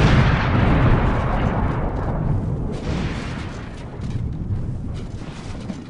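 Fiery explosion sound effect: a loud rumbling roar of flames that slowly fades away, swelling briefly again a few seconds in.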